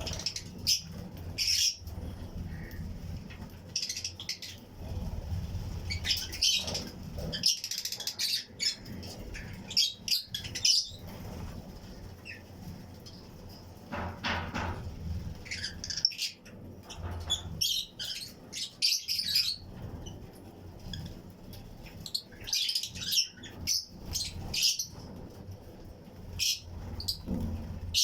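A colony of Fischer's and lutino lovebirds chirping in short, shrill clusters that come again and again, several birds calling at once. A low steady rumble runs underneath.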